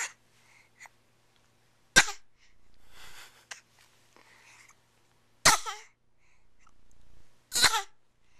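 A small child fake-coughing: four short, sharp coughs about two seconds apart, the first one weak, with a breath drawn in before each of the later ones.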